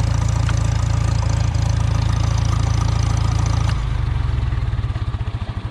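Farmall M tractor's four-cylinder engine idling, then switched off about two-thirds of the way in and coasting down, its firing pulses slowing and fading.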